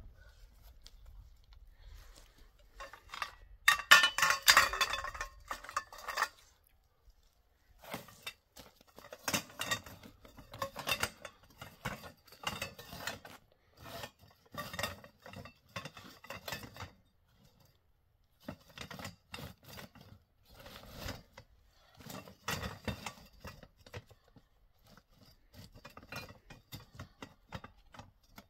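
Metal tent poles clinking and rattling against each other as they are handled in a sack. The sound comes in bursts with short pauses, the loudest burst about four seconds in.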